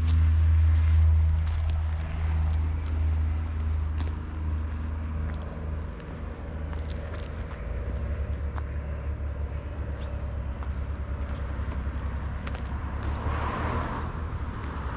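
Triumph Street Twin's 900 cc parallel-twin engine on its stock exhaust, running with a steady note that drops away about two seconds in. From about seven seconds it settles into a low, fast pulsing beat. A brief rush of hiss comes near the end.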